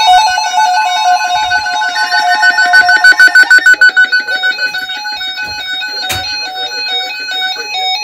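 Weather alert radios sounding their alarms for a severe thunderstorm warning: several electronic beeping patterns overlapping, stepping between pitches, over a steady tone. One sharp click about six seconds in.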